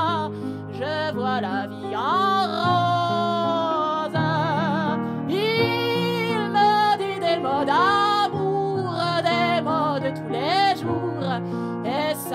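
A woman singing a melody with a wide vibrato on held notes and slides between pitches, accompanied by sustained piano chords.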